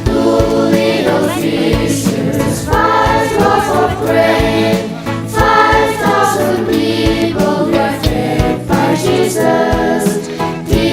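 Background music: a choir singing a church song over an instrumental backing with a steady bass and beat.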